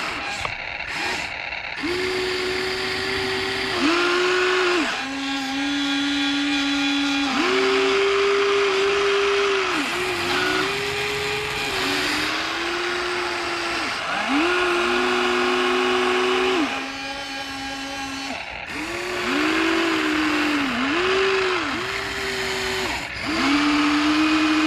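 Huina 1593 RC excavator's electric motors whining in runs of one to three seconds, starting, stopping and shifting pitch as the boom, arm, bucket and swing are worked to dig and load.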